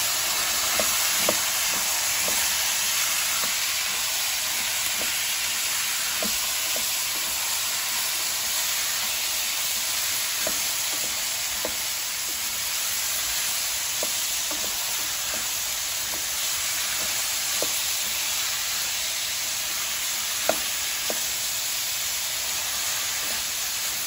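Runner beans and potatoes sizzling in hot ghee in a frying pan, a steady hiss, with scattered light ticks and knocks as they are stirred with a wooden spoon; one sharper knock comes about twenty seconds in.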